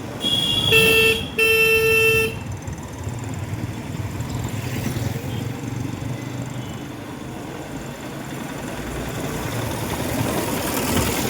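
Vehicle horn honking twice, two blasts of about a second each, followed by steady road and wind noise from riding on a motorbike.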